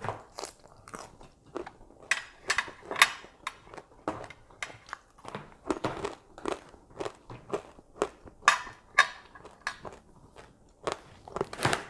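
Close-miked chewing and crunching of som tam and raw vegetables: irregular crisp bites and crackles, loudest about three seconds in and just before the end.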